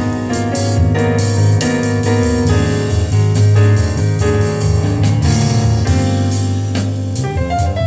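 Instrumental music with keyboard, drums and a strong bass line, played back through a pair of Sony SS-CM3 bookshelf speakers with 4.5-inch paper-cone woofers and 1.5-inch tweeters.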